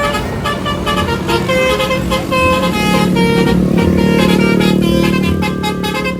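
Multi-tone 'telolet' horn honking a quick run of short notes at changing pitches, over a vehicle engine running.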